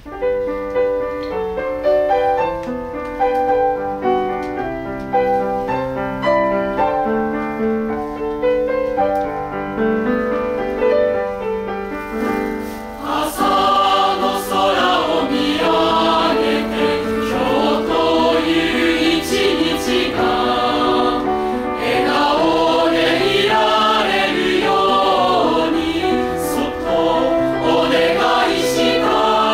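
A piano plays an introduction of steady, clean notes. About 13 seconds in, a mixed choir of high-school voices comes in singing with it, and carries on loud and full.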